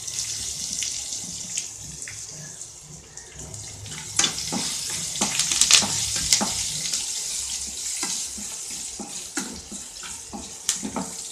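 Crushed garlic frying in hot oil in a kadai with mustard seeds, dried red chillies and curry leaves: a steady sizzle with crackles and pops, and a wooden spatula scraping and knocking the pan as it is stirred. The crackles and knocks come thickest about halfway through.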